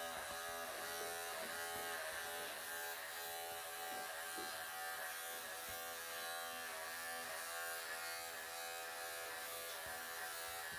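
Electric pet clippers running steadily, shaving through a cat's thick, matted coat, their buzz dipping slightly in pitch now and then as the blade meets the mats.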